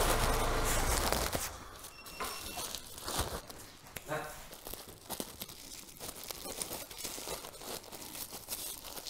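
Thin plastic file pocket, filled with gas, crinkling and rustling in the hands as it is twisted and secured shut, with small clicks and crackles. A steady low engine hum cuts off about a second in.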